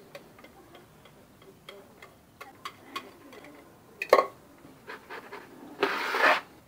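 Wire whisk clicking and scraping against a glass bowl as thick cheese mousse is scraped out, with one sharp knock about four seconds in. Near the end, a metal baking tray scrapes across a stone countertop for about half a second.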